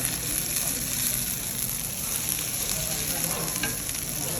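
Food sizzling in a hot stone hotpot as aromatics are fried in oil, a steady frying hiss.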